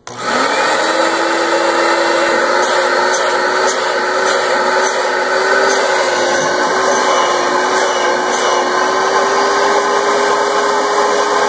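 Rug Doctor Mighty Pro X3 carpet cleaner's vacuum motor switching on, spinning up in the first half second and then running steadily, a steady tone over a loud rushing noise, its pitch stepping up slightly about two seconds in. The hose is plugged by hand to test the suction: solid suction with no leaking air, a good seal on the newly fitted hose kit.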